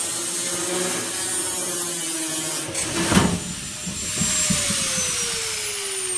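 Small angle grinder cutting through a shipping container's corrugated steel wall; about three seconds in a loud crash as the cut-out steel panel falls free. The grinder then spins down, its whine falling steadily in pitch.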